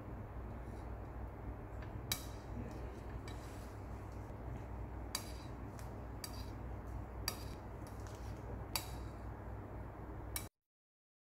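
Steel palette knife scraping and tapping on a glazed tile as sulfur is worked into soft paraffin by levigation, with a handful of sharp clicks of the blade against the tile over a steady low hum. The sound cuts off suddenly near the end.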